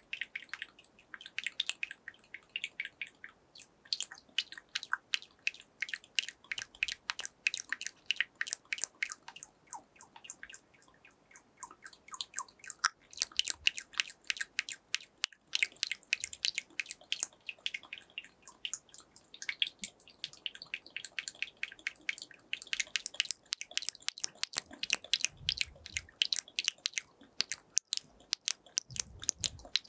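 Wet ASMR mouth sounds made close to a binaural microphone: rapid tongue clicks and lip smacks, several a second, with a short pause about ten seconds in.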